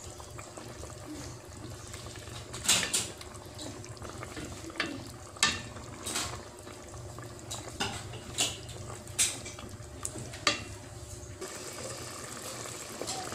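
Wooden spatula stirring a simmering pork-blood stew in a metal pot, knocking against the pot's sides in a series of sharp clacks, over the steady bubbling of the boiling liquid.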